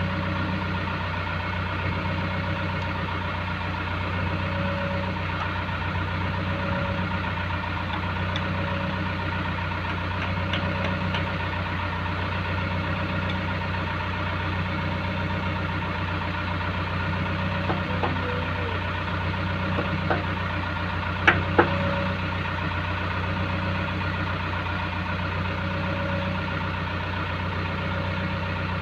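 JCB backhoe's diesel engine idling steadily while its bucket is changed, with a few sharp metal knocks about two-thirds of the way in from work at the bucket pin.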